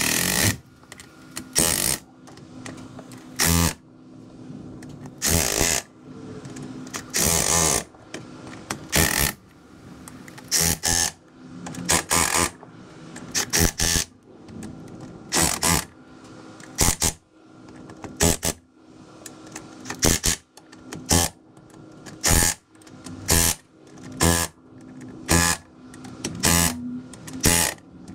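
Milwaukee M12 Fuel cordless ratchet running in many short bursts, about one a second, as it runs the differential cover bolts down one after another.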